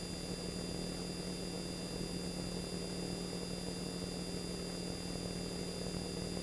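Steady drone of the T-28 Trojan's radial engine in flight, heard faintly over the cockpit audio feed, with an even hiss and a thin, high, steady whine over it.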